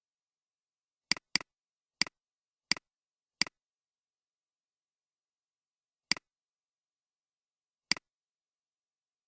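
Seven sharp clicks of a computer mouse, a quick run of five in the first few seconds, then two more spaced out, with silence between.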